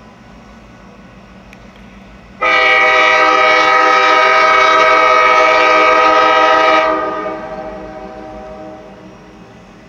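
EMD GP38-2 diesel locomotive's air horn sounding one long blast of about four seconds, starting a couple of seconds in and then trailing off as the train approaches.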